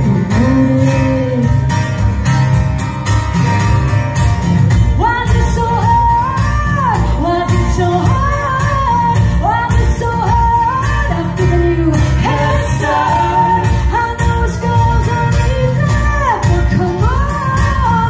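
Live band performance: a woman singing lead over strummed acoustic guitar and electric guitars, with a steady low bass rhythm underneath.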